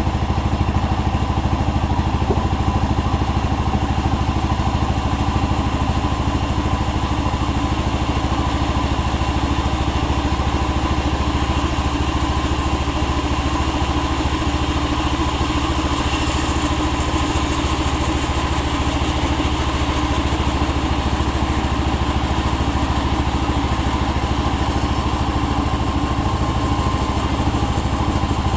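The engine of a power saw running steadily at an even speed, with no rise or fall in pitch.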